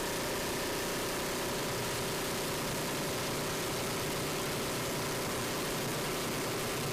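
Steady drone of a Lockheed AC-130's four turboprop engines heard inside the fuselage: an even rushing noise with a constant hum.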